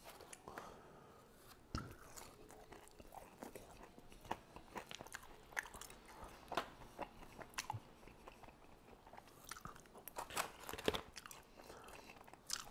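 Quiet, close-up chewing and crunching of crispy fried chicken wings, with scattered sharp crackles and clicks; a louder run of crunches comes near the end.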